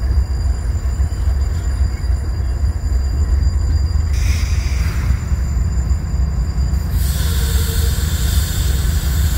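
Union Pacific diesel locomotives running with a deep, steady rumble. A short hiss comes about four seconds in, and a wider rushing hiss joins about seven seconds in.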